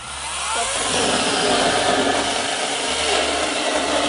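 Small handheld cordless battery mini chainsaw cutting through a wooden log, its sound building up over the first second as the chain bites and then running steadily under load.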